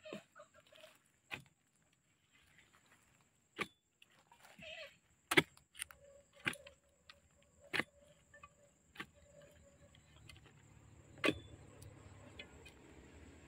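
Machete blade chopping into tree roots at the base of a trunk: sharp single strikes at an uneven pace, roughly one every one to two seconds, with some scraping in the soil between blows.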